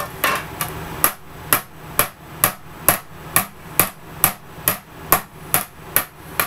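Hammer striking a dented, embossed metal license plate from the back on an improvised anvil, knocking the creased numbers back out. A few quick taps come first, then steady blows about two a second.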